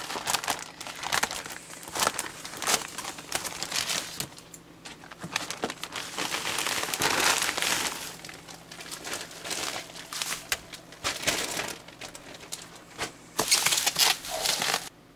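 Plastic courier bag and bubble wrap crinkling and rustling in irregular bursts as they are torn open and handled by hand.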